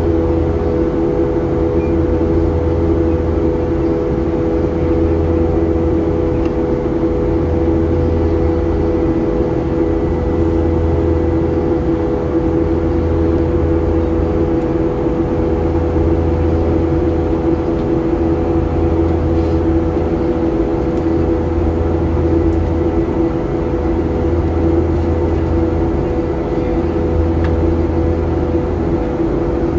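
Cabin noise of a Boeing 737-800 in flight: the steady drone of its CFM56 turbofan engines and airflow, with a low hum that swells and fades about every three seconds.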